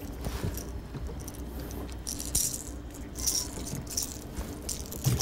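A fishing lure and its hooks rattling in short, irregular bursts as a small black bass shakes on the line and is unhooked by hand.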